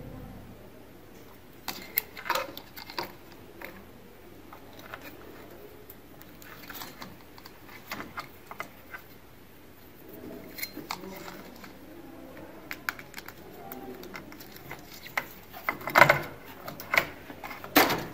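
Scattered clicks and knocks of plastic parts being handled: a washing machine's pressure sensor and its wiring connector being unplugged, turned over and fitted back in place, getting louder and busier near the end.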